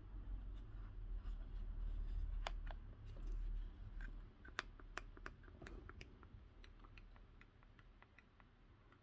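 Low handling rumble for the first few seconds, then a scatter of small sharp clicks, two or three a second and thinning out near the end, from fingers pressing and handling a small plastic LED-strip remote control.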